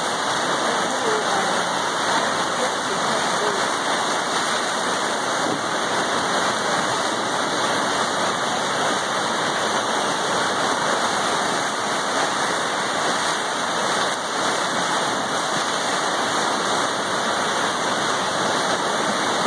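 River at flood stage: fast, swollen whitewater rapids rushing in a loud, steady, unbroken noise.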